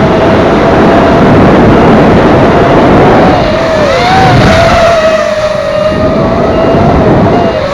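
FPV racing quadcopter motors and propellers whining, the pitch steady and then wavering up and down with the throttle from about halfway in, over a heavy rush of wind noise.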